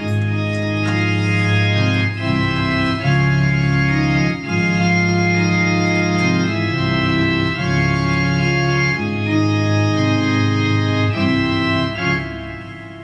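Instrumental music of long held chords that change every second or two, fading out near the end.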